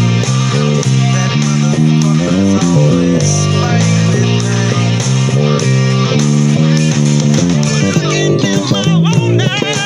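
Instrumental passage of a rock song: electric guitar and bass over a steady drum beat, with no singing. Sliding high notes come in near the end.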